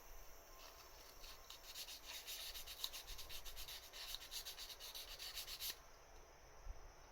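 Quick back-and-forth rubbing strokes, about five a second, that stop suddenly about six seconds in.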